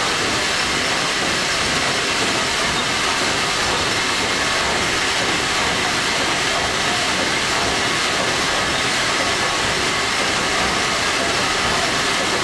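Engine room of a WWII Liberty ship underway: the triple-expansion steam engine and its auxiliary machinery running, a loud, steady machinery noise with a hiss over it.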